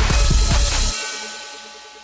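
Background music with a drum beat and heavy bass; the drums and bass cut out about a second in and the remaining music fades away.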